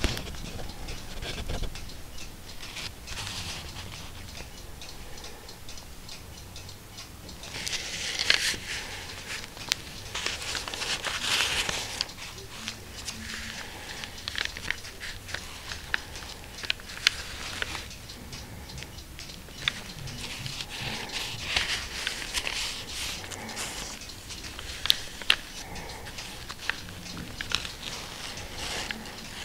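Dry pages of a small 1709 book rustling and crackling as white cotton-gloved hands handle and turn them, with many small clicks and ticks. The rustling is louder in two spells, about eight seconds in and again around twenty seconds.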